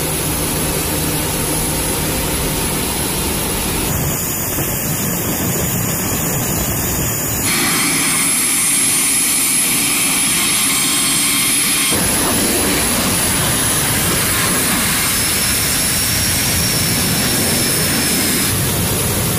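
The Rolls-Royce AE 2100D3 turboprop engines of a KC-130J Super Hercules running: a loud, steady turbine roar with a high whine. The tone changes abruptly several times along the way.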